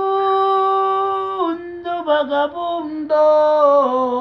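A man singing a cappella with no accompaniment, holding long wordless notes: one high note for about a second and a half, a short run of quicker notes, then another long note that steps down near the end.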